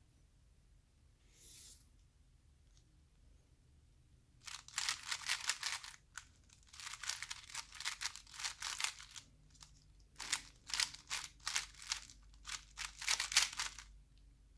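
The plastic layers of a 3x3 puzzle cube being turned rapidly by hand, a fast clatter of clicking, rasping turns. It starts about four seconds in and comes in three quick runs with short pauses between.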